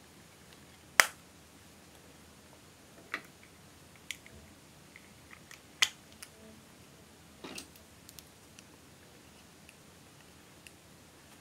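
Sharp plastic clicks and taps from eyeshadow compacts being handled and snapped open, about half a dozen spread out, the loudest about a second in.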